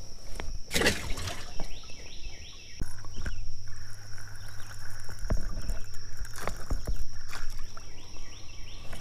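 Closed-face spincast fishing reel cast and cranked during a retrieve, with scattered knocks from handling the rod in the boat, over a steady high drone of crickets.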